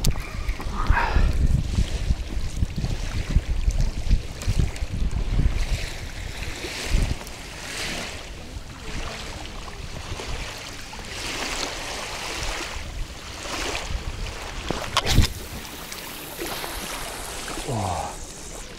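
Wind buffeting the microphone, with small waves lapping on a stony shore. The wind rumble is heaviest in the first few seconds and eases off after that. There is a single sharp click about fifteen seconds in.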